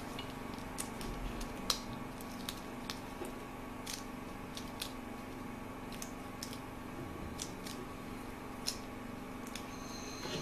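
Scattered light clicks and ticks at irregular intervals from gloved hands working a small piece of beading wax and handling small dental instruments on the bench, over a steady room hum.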